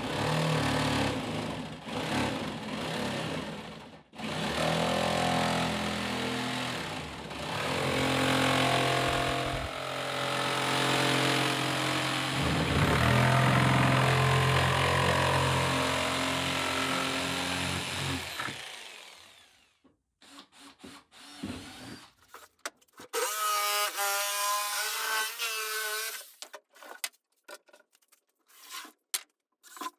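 A jigsaw cutting through the plastic top of a holding tank around its lid rim, running steadily for about nineteen seconds and then stopping. After a short pause comes a briefer whine with a wavering pitch, then a few clicks and knocks.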